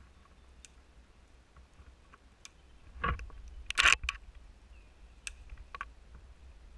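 Small dry conifer twigs snapping as they are broken off and gathered by hand for kindling: a scatter of light clicks, with two louder snaps about three and four seconds in.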